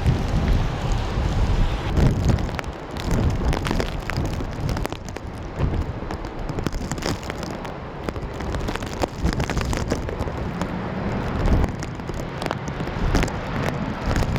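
Strong gusty wind buffeting the microphone: a loud, uneven low rumble that swells and dips with the gusts, with scattered crackles.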